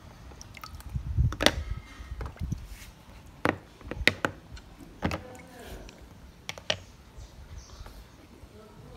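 Small hard plastic toy animals being handled and set down on a plastic tabletop: a series of sharp clicks and taps over low handling rumble.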